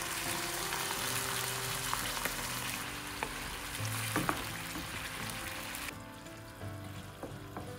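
Mushrooms frying in olive oil in a non-stick pan, sizzling as tomato purée is poured in and stirred with a wooden spoon. There are a few sharp knocks of the spoon, and the sizzle cuts off suddenly about six seconds in.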